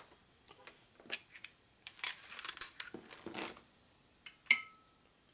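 Metal pushrods clinking and rattling against one another and the metal workbench as they are picked up and handled, with a sharp metallic tick about four and a half seconds in that rings briefly.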